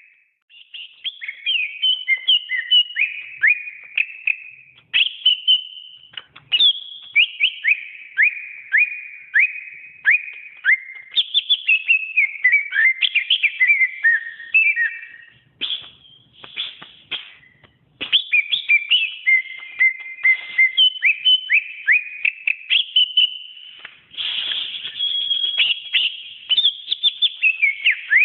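Cucak ijo (green leafbird) singing a fast, varied song of quick sliding whistled notes and chattering phrases, with a few short breaks.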